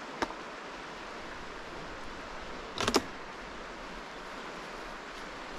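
Steady outdoor rushing noise with no clear source, broken by a sharp click about a quarter second in and a short cluster of knocks just before three seconds.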